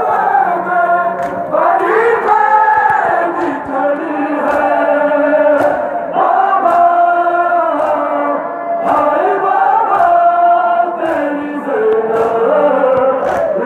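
A large crowd of men chanting a mourning lament (nauha) together in sung phrases. Sharp slaps of chest-beating (matam) keep a beat about once a second.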